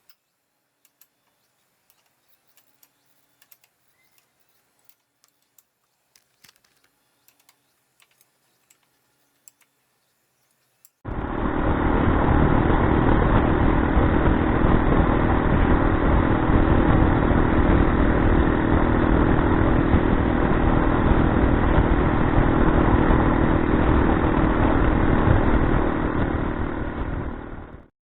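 Faint scattered clicks, then about eleven seconds in a Honda CBX125 riding along starts suddenly: steady, loud engine and wind noise on the microphone that fades out near the end.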